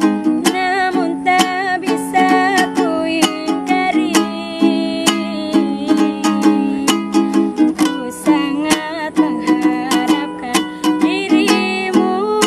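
Ukulele strummed in a steady rhythm of chords, with a woman singing a melody over it.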